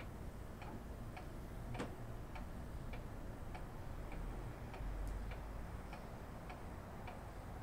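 A clock ticking faintly and steadily, a little under two ticks a second, over quiet room tone.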